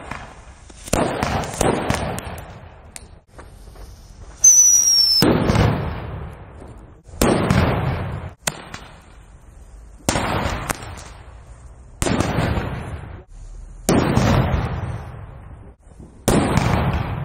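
Firecrackers exploding one after another: about eight sharp bangs roughly two seconds apart, each echoing off the surrounding buildings. The loudest, about four seconds in, carries a brief high falling whistle.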